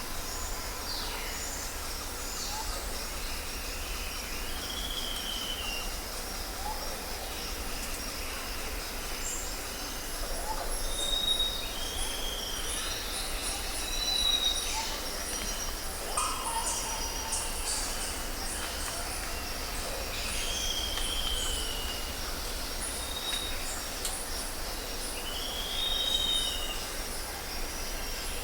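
Birds calling and whistling, a short arching call repeating every several seconds, over a steady high-pitched insect buzz.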